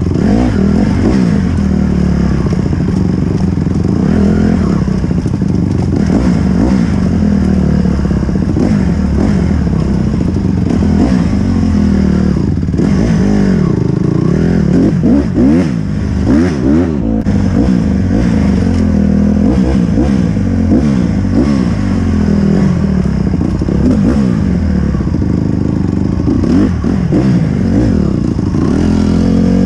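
Dirt bike engine being ridden, revving up and dropping back again and again as the throttle is worked.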